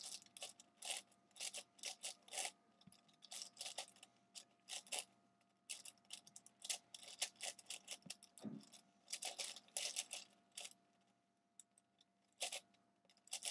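A V-Cube 7x7x7 puzzle cube's plastic layers clicking and clacking as they are turned rapidly during a speedsolve, in quick bursts of turns. The turning stops for about a second near the end, then resumes.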